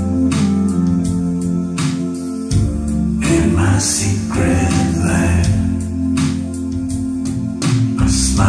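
A recorded song played through Canton Chrono 503.2 loudspeakers: an instrumental passage between vocal lines, with guitar, a strong bass and drum hits.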